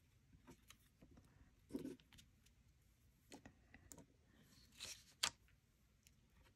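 Faint, scattered small clicks and light rustles of paper and small pieces being handled at a craft table, with a couple of slightly louder taps about two seconds and five seconds in.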